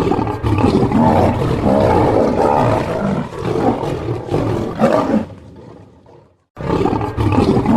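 Lions growling, a loud, rough, continuous din. It fades out about five seconds in, drops to silence briefly, and then starts again abruptly.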